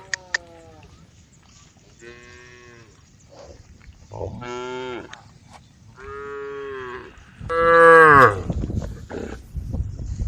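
Cows mooing, four drawn-out calls about two seconds apart, the last and loudest about eight seconds in, followed by a low rumbling noise near the end.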